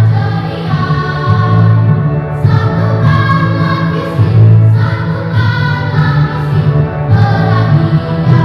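Children's choir singing, holding long notes in phrases with short breaks between them.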